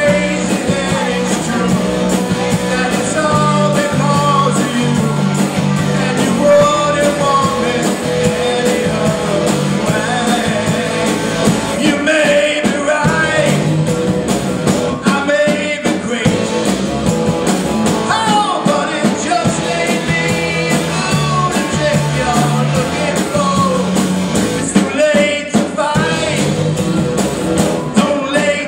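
Live rock band playing, with bass, guitar and drums and a voice singing over them.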